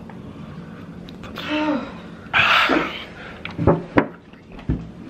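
A man in pain from a mouth burning with Carolina Reaper heat: a short groan falling in pitch, then a loud hissing breath out through the open mouth. After that come two sharp clicks, about four seconds in, as he handles a milk jug to drink.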